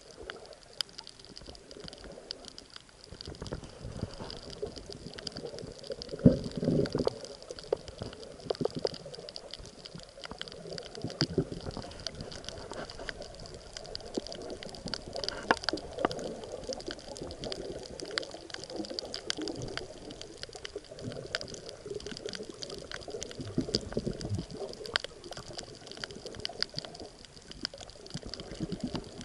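Underwater reef ambience picked up by the camera: a constant crackle of tiny clicks, typical of snapping shrimp, with swells of water rushing and bubbling past the camera, strongest about six seconds in and again near the end.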